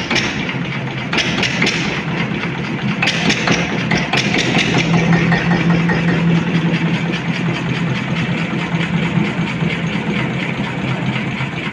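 Single-cylinder Lister stationary diesel engine running steadily with an even, repeating exhaust beat, warming up after being started.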